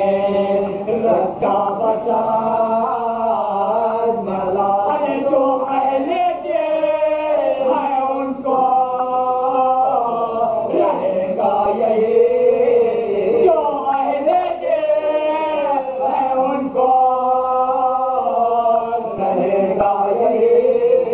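Several men's voices chanting an Urdu marsiya together in soz-khwani style, unaccompanied, in long held, wavering melodic lines.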